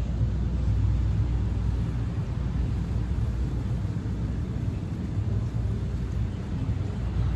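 Steady low rumble of outdoor background noise, its loudness wavering slightly, with no distinct events.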